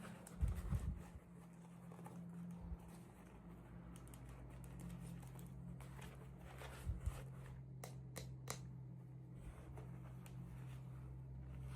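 Faint handling of small toy packaging: a couple of soft thumps near the start and a few sharp clicks later on, over a steady low hum.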